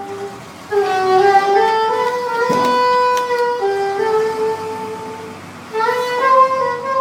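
A single melody instrument playing a slow tune in long held notes, phrase after phrase with short breaks between them, with a few faint clicks about halfway through.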